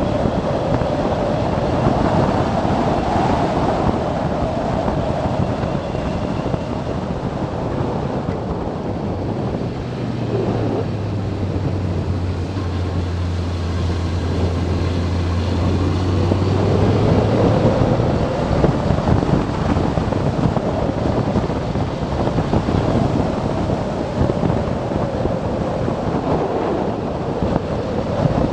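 Motorcycle engine running at road speed with wind rushing over the microphone; the engine note falls about ten seconds in and rises again a few seconds later.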